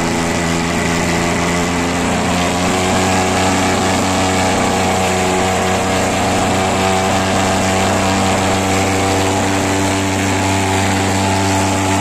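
Petrol-fuelled thermal fogging machine running with a steady, loud engine drone as it blows out a fog of diesel mixed with cypermethrin insecticide.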